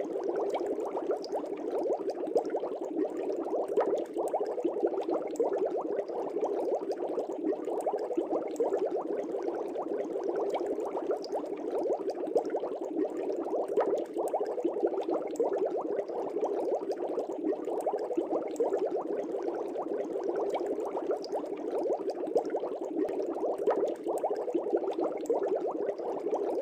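Aquarium water bubbling steadily: a dense, even stream of air bubbles, low in pitch.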